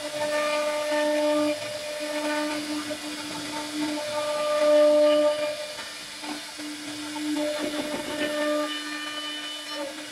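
A CNC router spindle runs with a steady whine while its bit routes grooves into a wooden table frame. The whine and the cutting noise swell and fade as the bit moves through the cut, with a brief patch of rattling chatter near the end.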